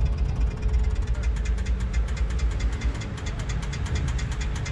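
Engine idling close by: a steady low rumble with a fast, even ticking pulse.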